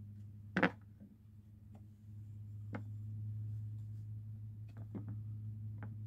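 Steady low hum with a sharp click about half a second in and a few fainter clicks later on.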